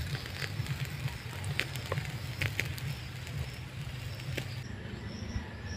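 Pork chops grilling over a charcoal fire: scattered crackles and pops from the coals and dripping fat over a steady low rumble, until the sound changes near the end.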